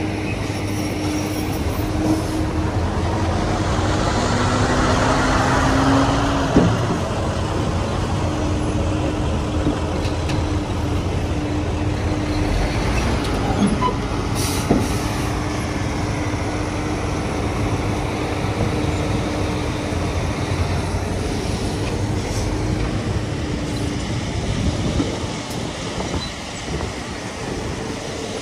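Heavy diesel earthmoving machinery running steadily with a low drone. The noise swells a few seconds in, and a single sharp knock follows.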